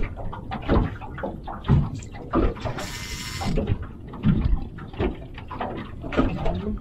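Water lapping and slapping against a small boat's hull in irregular knocks, with a brief hiss about three seconds in.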